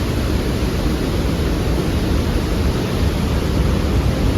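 Loud, steady rush of a fast mountain torrent or waterfall pouring through a gorge.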